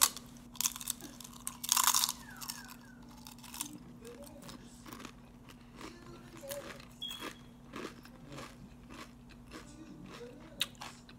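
A crisp corn tortilla chip scoop filled with guacamole being bitten and chewed: loud crunches at the start and again about two seconds in, then softer crunching as the chewing goes on.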